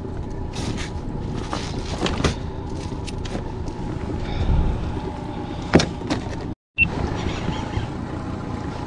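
A boat's outboard motor running steadily, with several sharp knocks and clatters as the catch and landing net are handled in the boat. The sound cuts out completely for a moment about two-thirds through.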